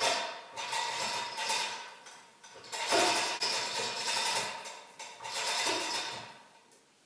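Hand-operated chain hoist being worked, its steel chain rattling and clinking through the hoist in four bursts of about a second each while it holds a heavy cast-iron lathe bed.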